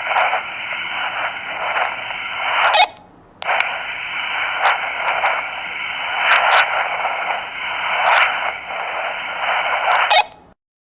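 Walkie-talkie static: a narrow, tinny hiss in two stretches with a short break between them, each ending with a sharp squelch click as the transmission drops, with a few fainter clicks along the way.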